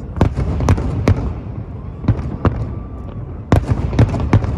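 Fireworks display going off: a string of sharp bangs, bunched near the start and again near the end, over a continuous low rumble.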